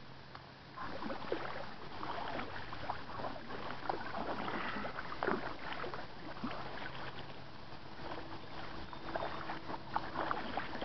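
Kayak paddle dipping into river water, with small irregular splashes and drips from the blades.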